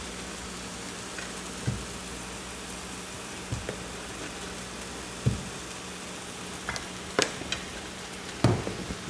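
Diced white onion sizzling as it sautés in oil in a nonstick frying pan: a steady frying hiss, with a few short sharp knocks scattered through it.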